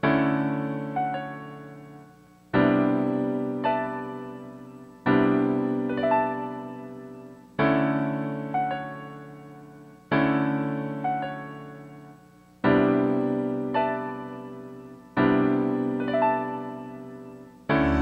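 Background music of slow, soft piano chords, one struck about every two and a half seconds and left to fade, each answered by a higher note about a second later.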